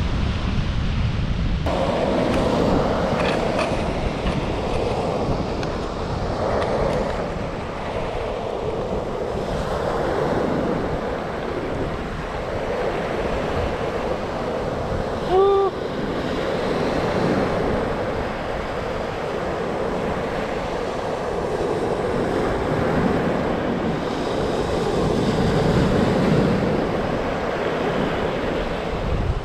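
Strong ocean waves breaking and washing on the shore: a steady surf that swells and ebbs, with wind buffeting the microphone. About halfway through there is a short, loud pitched sound.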